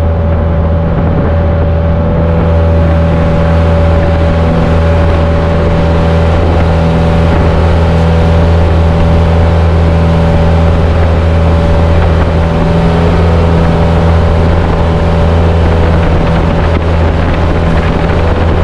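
Outrigger bangka's engine running steadily under way, a loud, even drone that holds the same pitch throughout.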